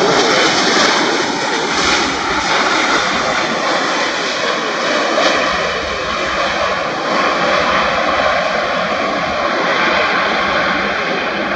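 Jet engines of a Boeing 757-200 during its landing rollout: a loud, steady rush of engine noise with a thin high whine running through it.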